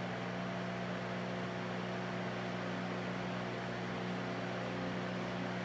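Vintage Mimar 425 electric fan running steadily on low speed, its motor giving a constant hum over the whoosh of the blades. It is still warming up after a cold start.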